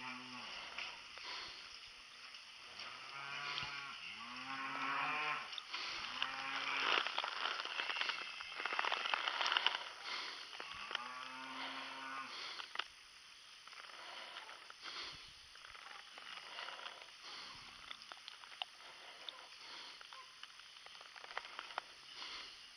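Cows mooing, several long calls one after another in the first half and another about eleven seconds in, with a rustling hiss and scattered clicks between them.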